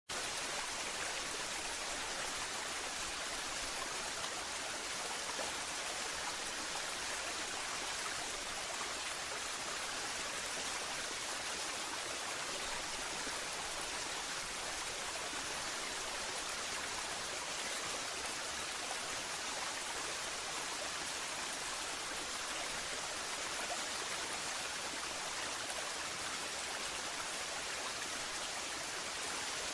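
Waterfall: a steady, even rush of falling water that holds constant throughout.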